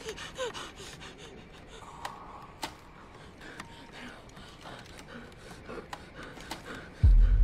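A boy's frightened gasping breaths and short whimpers over faint scattered clicks and creaks. About seven seconds in, a sudden loud deep boom hits and rings on.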